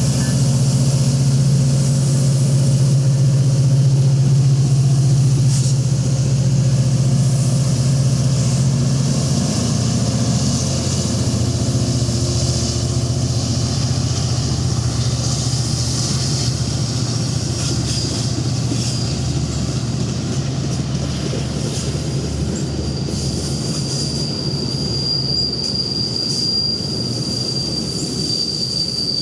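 A passing train: a loud, steady low rumble that slowly fades, with the rolling wheels adding a noisy wash. Near the end a thin, high, steady wheel squeal comes in.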